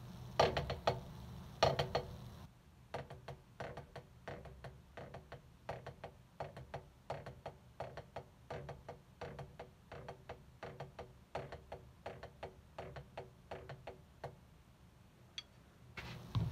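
Wooden drumsticks playing flams, the drum rudiment: a steady run of paired stick strokes, loudest in the first two seconds, stopping about a second before the end.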